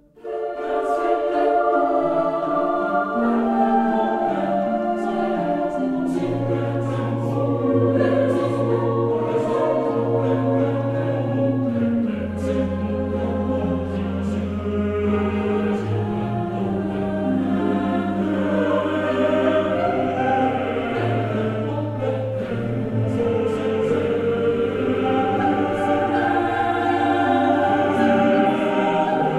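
Background choral music: a choir singing slow sustained chords, with long held bass notes coming in about six seconds in.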